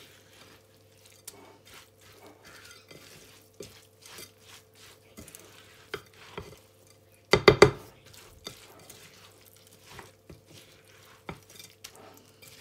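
Silicone spatula stirring a rice, herb and tomato stuffing in a bowl, with scattered soft scrapes and taps. A little past halfway there is a quick cluster of three or four loud knocks against the bowl.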